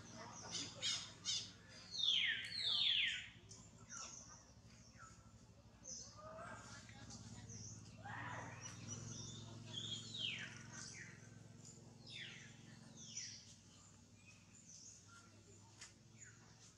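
High-pitched animal calls: several short squeals falling in pitch, the loudest pair about two seconds in, among scattered faint chirps, over a low steady hum.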